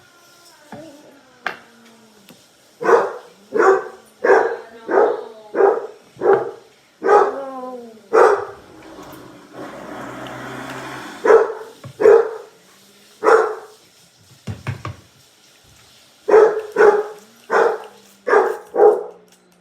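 A dog barking repeatedly in volleys of short, sharp barks, with a brief noisy hiss about halfway through.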